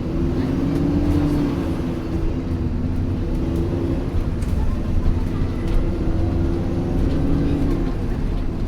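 Alexander Dennis Enviro400 Trident double-decker bus under way, heard from inside: a steady engine and drivetrain hum over low road rumble, with a few light rattles.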